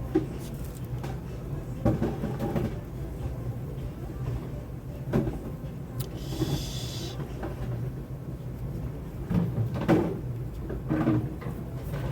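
Scattered knocks and clatter of hand work on motorcycle brake parts, with a short hiss about six seconds in, over a steady low hum.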